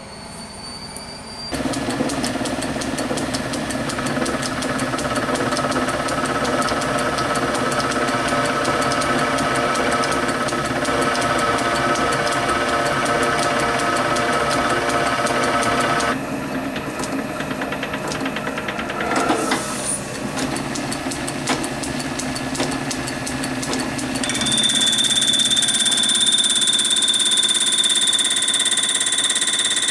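Small metal lathe running with a steady whine from its drive while a drill chuck centre-drills a spinning zinc-aluminium flywheel casting. Near the end a steady high-pitched squeal joins as a turning tool cuts the casting, the squeal of a blunt tool.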